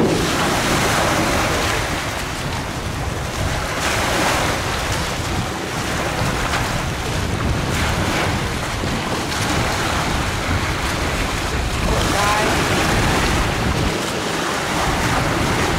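Choppy waves breaking and washing against a concrete boat ramp and seawall, with steady wind buffeting the microphone.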